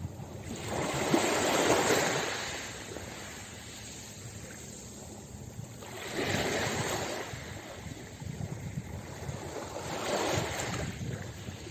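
Small sea waves breaking and washing up onto a pebble beach, three times: a rush of surf about a second in, another at about six seconds and a third near the end, each swelling and fading, with quiet lapping water between them.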